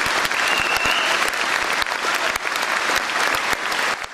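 Studio audience applauding, a dense patter of many hands clapping, with a brief high whistle about half a second in; the clapping dies down near the end.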